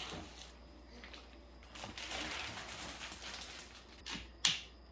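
Rustling and light clicks as the parts of a folding canoe are unpacked and handled, with a sharper clack near the end.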